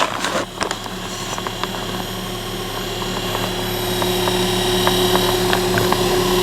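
A steady machine hum with a few low tones held constant, growing gradually louder, with a higher steady tone joining about a third of the way in and a few faint light clicks.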